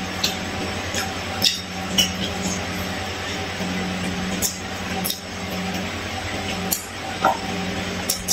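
Close-up eating sounds: chewing fried fish picked off the bone by hand and biting into raw green chilies, with short wet mouth clicks and crisp crunches every second or so. A steady low hum runs underneath.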